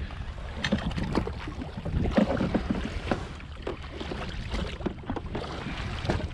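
Wind buffeting the microphone over small waves slapping against a jet ski's hull, with irregular splashes and knocks as a small fish is handled at the water's edge.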